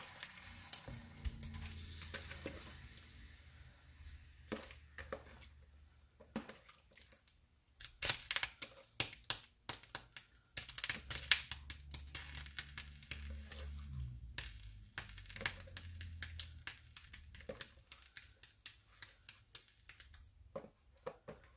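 Raw shrimp dropping from a bowl into a skillet of melted butter: a string of irregular wet plops and crackling pops, over a low hum that stops about three quarters of the way through.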